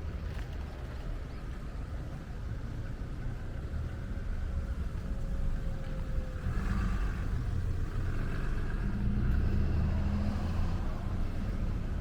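A motor vehicle going by, a low rumble that grows louder in the second half.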